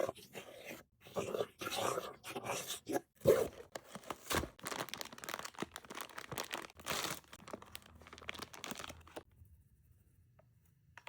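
Pop Mart blind box packaging being torn open and crinkled by hand, in a dense run of irregular crackling rustles that stops about nine seconds in.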